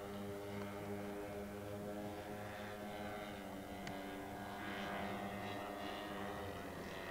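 Petrol (ZG gas) engines of a 1:6 scale radio-controlled Ford Trimotor droning steadily in flight. The pitch shifts and the sound brightens for a couple of seconds past the middle as the plane passes.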